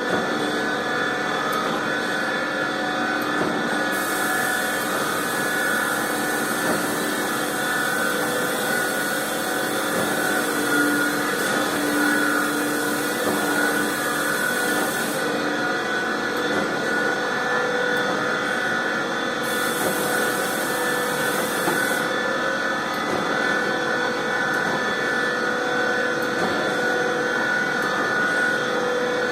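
3G71 surface grinder running: a steady machine hum with several held tones. A high hiss comes in about four seconds in, stops around fifteen seconds, and returns briefly around twenty seconds.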